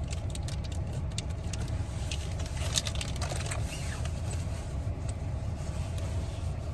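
Steady low rumble of a running car heard from inside the cabin, with light scattered clicks and rattles.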